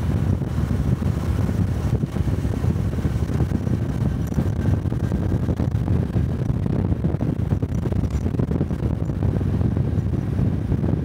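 Honda Cub 125 cc air-cooled single-cylinder motorcycle engine and exhaust running steadily while riding along.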